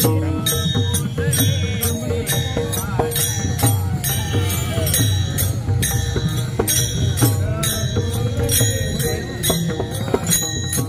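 Warkari devotional bhajan music: small hand cymbals (taal) struck in a steady beat, about three strikes every two seconds, over a held drone and low drumming.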